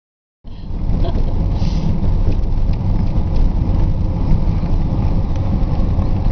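Wind and road noise of a moving car heard from inside the cabin through an open window: a loud, steady low rumble that starts about half a second in.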